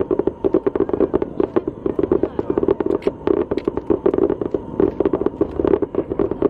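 Fireworks going off in a fast, unbroken string of sharp bangs and pops, many a second.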